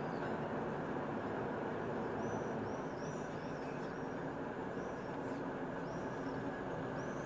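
Steady low rumble of a truck-mounted crane's engine running, with a small bird chirping over it in short high arched notes, a quick run of them about two to three seconds in and more near the end.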